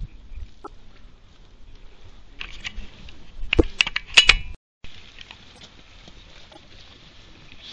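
Handling noise: a run of sharp clicks and knocks about two and a half to four and a half seconds in. It is followed by a brief dead dropout in the recording, then a faint steady hiss.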